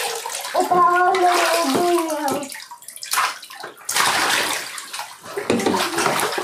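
Bathwater splashing and sloshing in a home bathtub as a child plays and dives, in bursts about three seconds in and again for a couple of seconds after four. A child's drawn-out high call comes about half a second in and lasts about two seconds.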